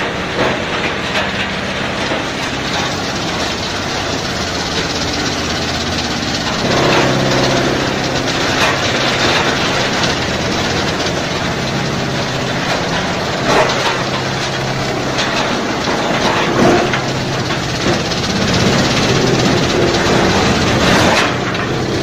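Electric-motor-driven tub-type tree root and stump grinder running with a steady hum, with crunching and cracking as wood is ground, and several louder bursts of it through the middle and near the end.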